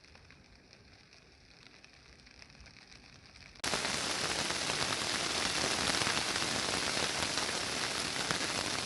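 Rain falling, faint at first. About a third of the way in it cuts abruptly to much louder, heavy rain, a dense steady hiss that holds to the end.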